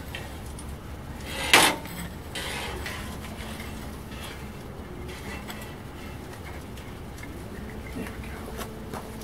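Steel tools and chain clanking against steel at a lit forge, with one loud clank about a second and a half in and a few lighter knocks later, over a steady low rumble.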